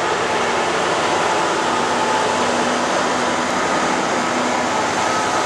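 EWS Class 66 diesel locomotive, with its two-stroke EMD V12 engine, hauling a train of hopper wagons past: a steady, loud mix of engine drone and rolling wheel noise with no clear break.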